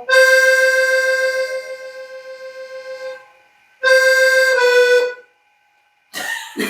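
Accordion playing a single melody line: one long held note around high C that swells and then fades away with a slight wavering, then after a short pause two shorter notes, the second a step lower.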